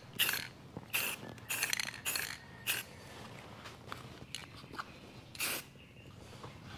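Aerosol spray paint can spraying engine paint in short hissing bursts: a quick series of them in the first three seconds, then one more about five and a half seconds in.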